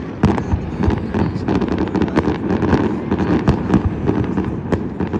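Many fireworks and firecrackers going off at once: a dense run of sharp cracks and pops, several a second, over a steady crackle.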